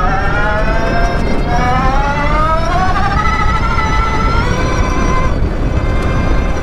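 Sierra Echo electric race car's electric motor and gear reduction whining under full throttle, the pitch rising as it accelerates, dipping briefly about a second in, then climbing again before falling away about five seconds in. Heavy wind and dirt noise under the whine.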